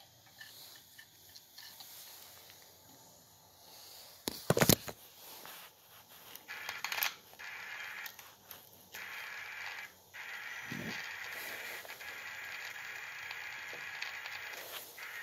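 A loud knock of handling about four and a half seconds in, then steady hiss from a BITX40 transceiver's receiver audio, broken by a few short dropouts.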